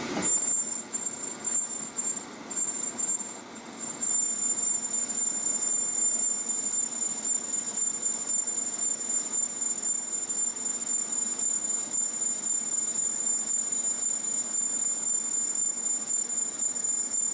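Metal lathe running in reverse while a woodruff key cutter, used as a turning tool, cuts behind the flange of a turbocharger housing, giving a high-pitched squeal over the machine noise. The squeal breaks in and out over the first few seconds, then holds steady.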